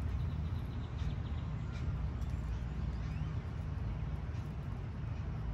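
Outdoor background: a steady low rumble with a few faint bird chirps, and light clicks from handling the succulent cuttings.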